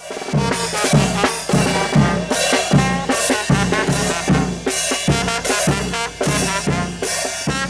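Live brass band playing: trumpet and trombones over drums and cymbals, with a steady drum beat about twice a second.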